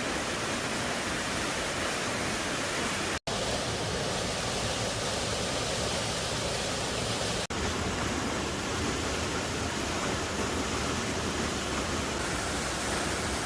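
Steady rush of water from a mountain valley stream, with two very brief cut-outs, about 3 and 7.5 seconds in.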